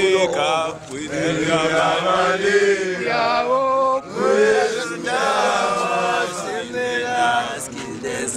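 Group of male football supporters chanting together close to the microphone, several voices in a sung rhythmic chant.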